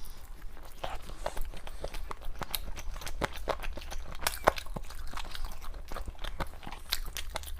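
Close-up biting and chewing of food, with many irregular crunchy clicks.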